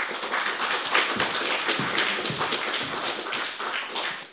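Audience applauding: many hands clapping at once, starting abruptly and dying away near the end.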